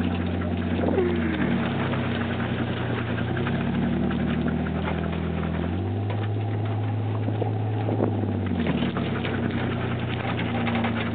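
A vehicle engine running steadily while towing a jet ski across grass on a chain, its pitch shifting down and up a few times as the engine speed changes.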